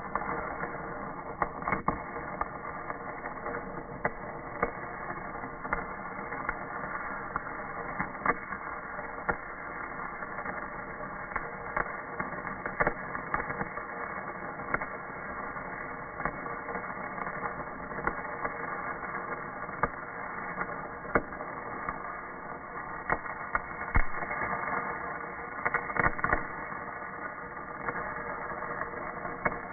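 Stick-electrode (shielded metal arc) welding arc, slowed down with the slow-motion video so it sounds deep: a steady crackling hiss broken by frequent irregular sharp pops of spatter.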